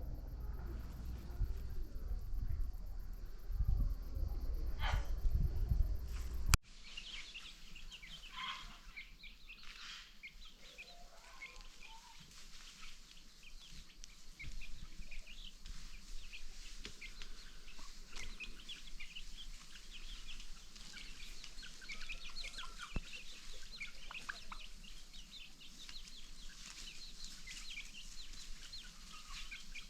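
A low rumbling noise for the first six seconds or so, cut off suddenly; after that, chickens clucking and calling, among many short, high chirps.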